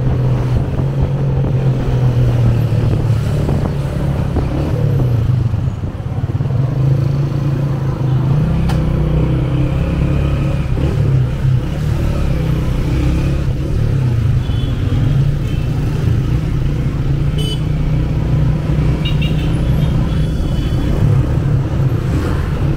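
Motorcycle engine running steadily beneath the rider, its low hum rising and falling as it rides and slows through stop-and-go city traffic, with the noise of surrounding cars and scooters.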